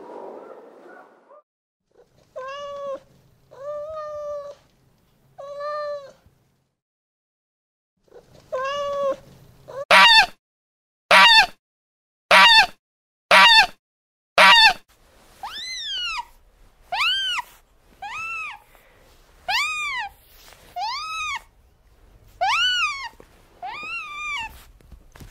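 A series of pitched animal calls, one at a time: a few at first, then five loud, sharp calls about a second apart, then a run of rising-and-falling cries.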